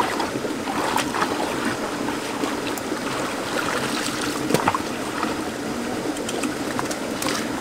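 Shallow rocky stream running and trickling over stones, with a few short splashes and knocks from wading and a bamboo pole poked into the water, the sharpest about four and a half seconds in.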